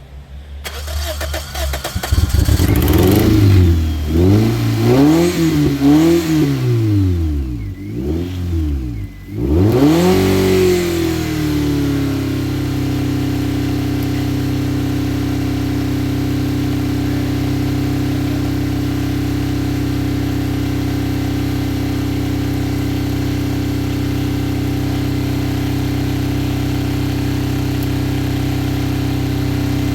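Toyota engine, its intake and valve cover filled with a couple thousand airsoft BBs, revving up and down over and over for the first several seconds, its revs dipping low about nine seconds in, then settling into a steady idle for the rest.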